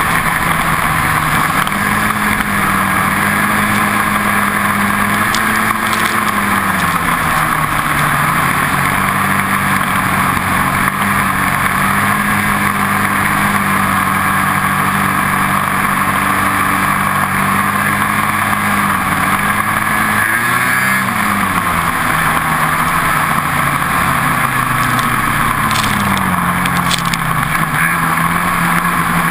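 Ski-Doo snowmobile engine running at speed. Its pitch mostly holds steady but drops and climbs back a few times as the throttle is eased and reopened.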